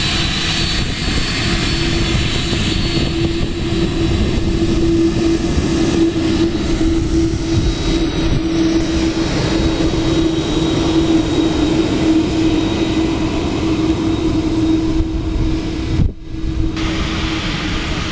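Airliner engines running loud and close: a steady roar with a low hum and a high whine that fades over the first few seconds. The sound dips briefly about sixteen seconds in.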